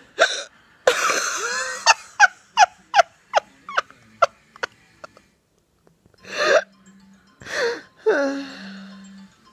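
Young child giggling: a squealy laugh, then a string of short, sharp hiccup-like giggles about two or three a second that fade away, and a few more breathy laughs near the end.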